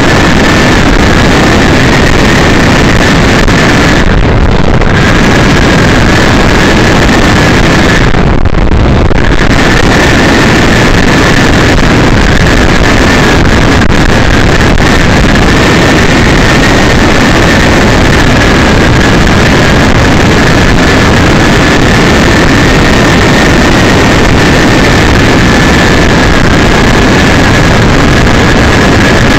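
Loud, steady road and engine noise of a car at highway speed, picked up by a dashcam microphone, with a constant high whine on top.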